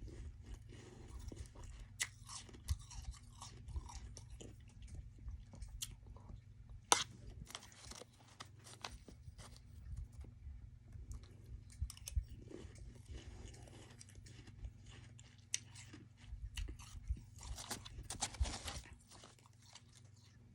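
Close-up chewing and crunching of soft freezer-frost ice, a run of irregular wet crackly crunches with a few sharper bites.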